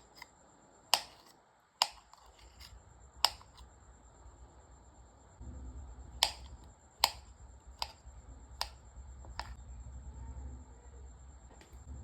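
A knife cutting through papaya and striking the cutting board in about eight sharp knocks, the later ones coming about one a second. A low hum comes in about halfway.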